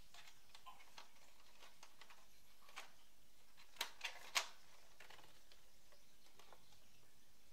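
Light plastic clicks and taps as the plastic paper tray of an Epson Stylus Photo PX720WD printer is handled, with three sharper clicks in quick succession about four seconds in.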